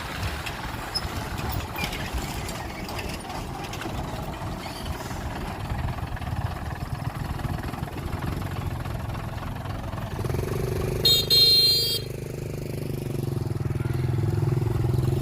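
Heavy diesel earthmoving machinery, a bulldozer and dump truck, running steadily. About ten seconds in, the engine note rises and steadies under load. Just after that comes a brief high-pitched squeal.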